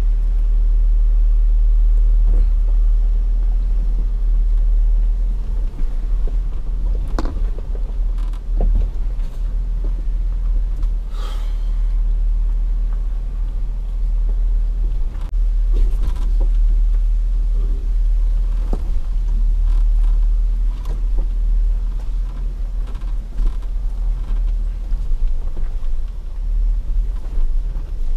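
Steady low rumble of an off-road vehicle crawling slowly over a rocky dirt trail, with scattered knocks and clunks.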